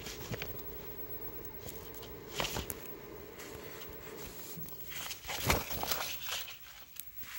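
Handling noise: a few short rustles and knocks from a phone and a plastic-covered sheet being moved, with a cluster of them between about five and six seconds, over a low steady hum.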